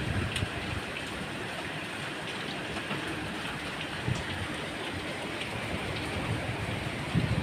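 Steady rain: an even hiss with a few scattered drops ticking through it.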